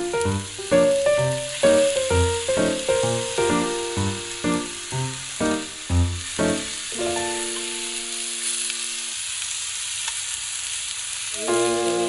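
Food sizzling as it fries, a steady hiss under background music of plucked notes over a bass beat. The music stops on a held chord about nine seconds in, leaving only the sizzle, and comes back near the end.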